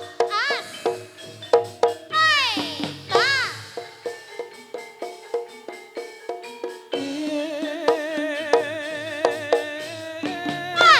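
Live music for a jaranan dance. Struck pitched percussion and drums keep a busy rhythm, with several short swooping rising-and-falling calls in the first few seconds. A louder, wavering sustained melody comes in about seven seconds in.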